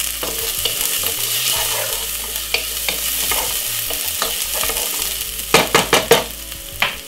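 Chopped garlic and sliced white onion sizzling in oil in a nonstick pot, stirred with a wooden spoon. Near the end comes a quick run of sharp knocks as the spoon hits the pot.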